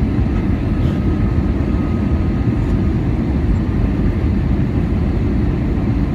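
Steady low rumble of engine and airflow noise inside the cabin of an Airbus A320-216, heard from a window seat near the front. A faint steady whine sits over it for the first half.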